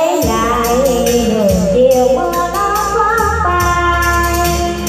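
A woman singing into a microphone, holding notes with vibrato, over backing music with a regular beat of high, shaken percussion.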